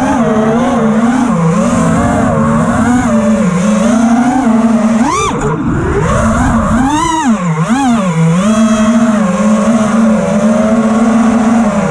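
Brushless motors and tri-blade props of a 5-inch FPV racing quadcopter (T-Motor F60 Pro IV motors), heard from the onboard camera: a buzzing whine whose pitch rises and falls constantly with the throttle, with sharp throttle punches about five and seven seconds in.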